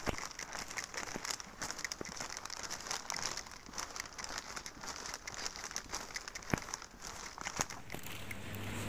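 Paper shopping bag rustling and crinkling as it is carried at a walk, with a few sharper taps of footsteps on stone paving. Near the end a low steady hum comes in.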